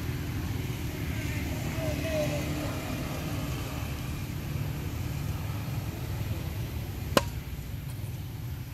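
Steady low outdoor background rumble with faint distant voices, and a single sharp click about seven seconds in.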